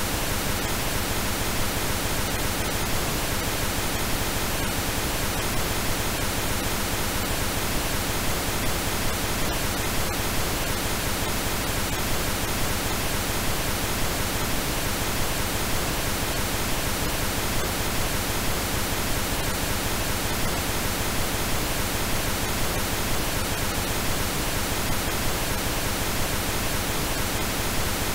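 Steady, unchanging synthetic pink noise, a constant even hiss across all pitches.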